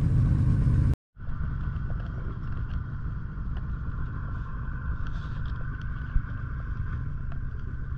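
Outboard motor of a river pirogue running steadily, a low drone with a constant higher hum. It cuts out for a moment about a second in.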